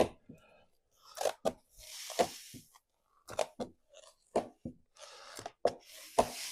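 Crackling and scraping from a large vinyl decal being hand-applied to a polycarbonate panel: a small squeegee swiping over the film in short strokes, and the paper liner crinkling as it is rolled back. The crackles come irregularly, with three short hissing swipes.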